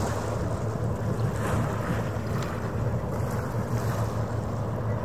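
Steady low engine drone of a passing harbour ferry, with a rough rush of wind and water noise.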